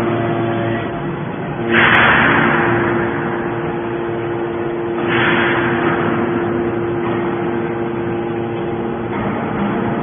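Hydraulic scrap metal baler running: a steady hum from its power pack, with two sudden loud rushes of noise about three seconds apart, each fading over a second or two, as the machine cycles.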